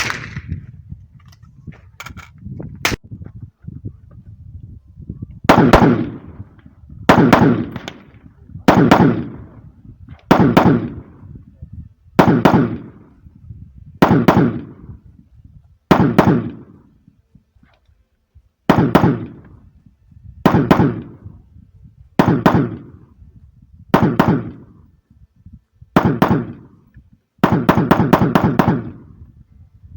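Rifle gunfire: about a dozen single shots fired at a steady pace, roughly one every second and a half to two seconds, each with a short echo. Near the end comes a rapid string of several shots in quick succession.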